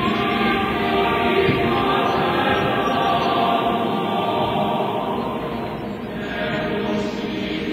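A choir singing, many voices holding long, sustained notes together.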